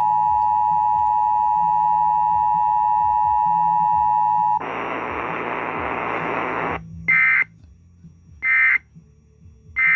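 Emergency Alert System broadcast tones over AM radio: the two-tone attention signal (853 and 960 Hz), a steady two-pitch tone that cuts off after about four and a half seconds into a couple of seconds of static hiss. Then three short warbling data bursts of the SAME digital code, about a second and a half apart, the end-of-message signal.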